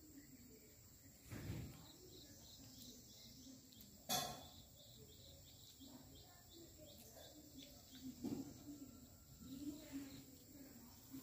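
Quiet outdoor ambience with faint repeated insect-like chirps, broken by a soft knock and then a sharper knock a few seconds later, and a few small bumps near the end.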